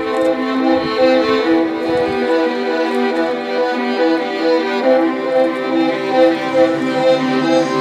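Background music led by a violin, playing a melody of held notes that change about every half second.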